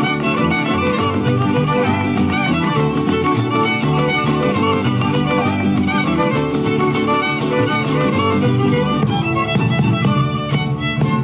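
Instrumental jarabe, a Mexican folk dance tune: violins carry the melody over a rhythmic accompaniment with a steady beat.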